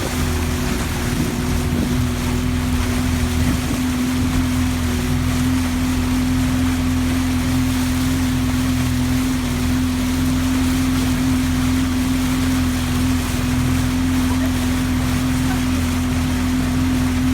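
Boat's engine running steadily, a constant hum, with wind and water noise rushing over it.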